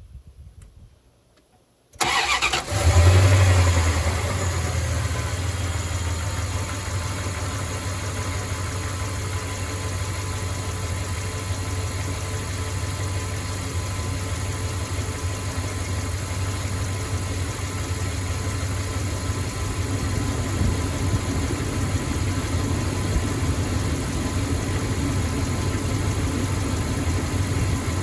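Ram 1500 pickup truck's engine cranked and starting about two seconds in, flaring briefly, then settling into a steady idle until it cuts off right at the end.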